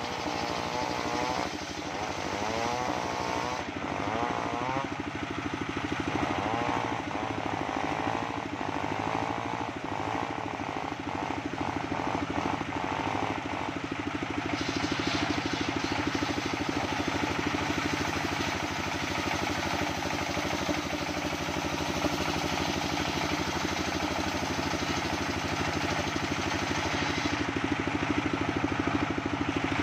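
Engine-driven circular saw bench running steadily while its blade rips jackfruit timber into planks. A tone wavers up and down through the first half, and a harsher hiss of the cut comes in from about halfway.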